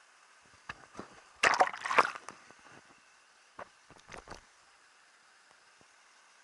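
Water sloshing and splashing in short bursts, loudest about a second and a half in, with a few smaller splashes and clicks afterwards over a faint steady hiss.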